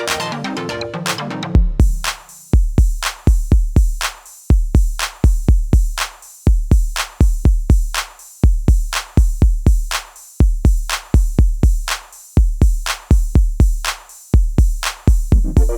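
Electronic music with a drum-machine beat. A busy synth passage drops out about a second and a half in, leaving deep bass kicks and sharp high hits in a steady repeating pattern, and the synths come back near the end.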